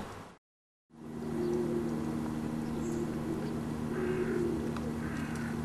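Original field sound of a wolf enclosure after a short gap of silence: a steady low hum and hiss, with a few faint short whines from wolves licking at each other's mouth corners, a gesture of active submission.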